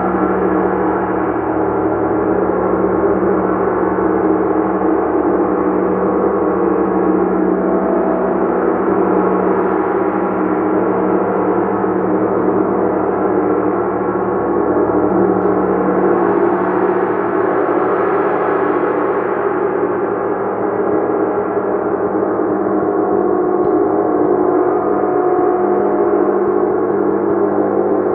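Gong played continuously, a dense steady wash of many overlapping sustained tones at an even loudness, brightening slightly in the upper range about two-thirds of the way through.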